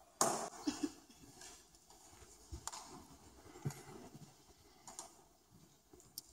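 A quiet hall with no music playing: scattered small clicks, knocks and rustles, with one louder knock just after the start.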